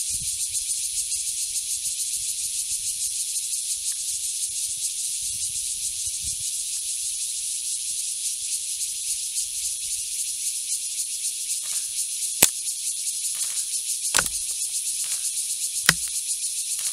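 Steady, high-pitched, finely pulsing insect chorus. Three sharp clicks come in the last third, about a second and a half to two seconds apart.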